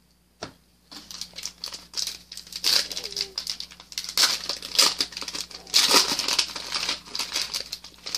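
Foil wrapper of a Panini Prizm baseball card pack crinkling and tearing as it is pulled open by hand, a dense crackle after a single knock at the start.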